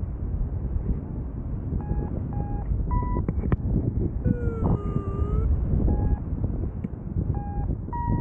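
Wind rushing over the microphone in flight, with a paragliding variometer sounding short electronic beeps in small groups, the later beep of a group higher in pitch, a sign of the glider meeting lift. Midway there is one longer electronic tone that dips and rises again.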